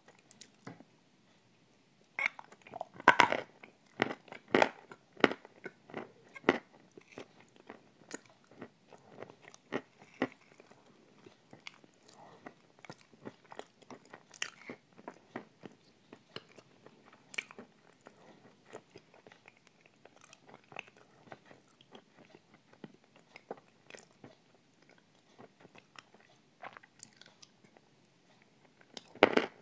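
Close-miked eating of a thick, creamy dessert with a spoon: wet mouth smacks and chewing clicks. They come thickest and loudest a couple of seconds in and again near the end.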